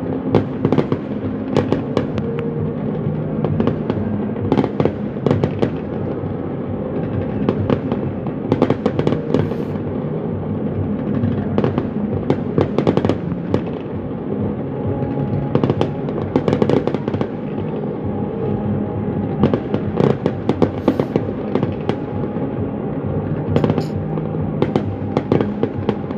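Aerial fireworks going off in a rapid, irregular barrage of bangs and crackles, in thicker clusters every few seconds, with music playing steadily underneath.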